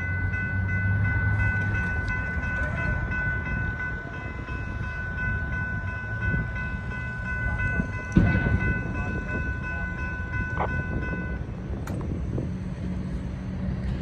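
CSX manifest freight train rolling past with a steady low rumble. A steady high-pitched ringing of several tones runs over it and cuts off suddenly about eleven seconds in. There is a sharp clank about eight seconds in.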